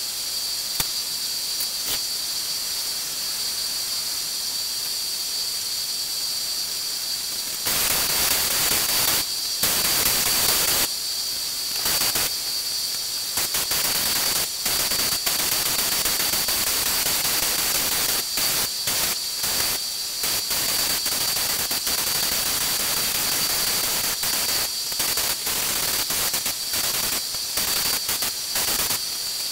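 Gravity-feed spray gun hissing as compressed air atomises paint. It starts loud about eight seconds in and is broken by many short gaps as the trigger is let off between passes, over a fainter steady hiss and a thin high tone.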